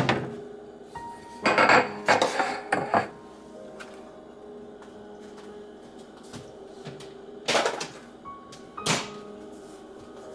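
Kitchenware clattering on a countertop: a few loud knocks and rattles in the first three seconds, then two more near the end, over soft background music.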